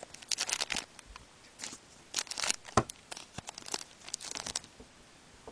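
Hockey card pack wrappers being torn open and crinkled by hand, in several short bursts of rustling. A single sharp click comes about halfway through.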